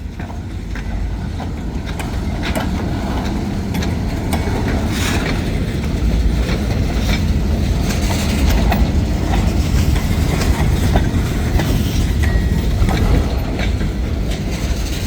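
Freight train rolling past: a steady low rumble with the wheels clacking over rail joints, building up over the first half and then holding.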